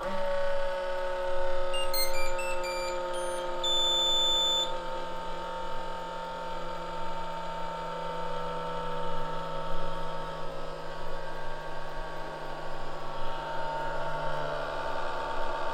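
Anycubic Chiron 3D printer's cooling fans running with a constant grinding drone just after power-on, its pitch sagging slightly over time; the owner takes the fans to be loose or broken in shipping. About two seconds in, a quick run of electronic beeps ends in a longer beep.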